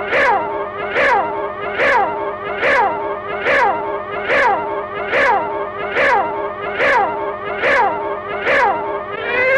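Cartoon cat yowling over and over, about one yowl a second, each sliding down in pitch, while it is swung round by its tail. A steady low hum runs beneath.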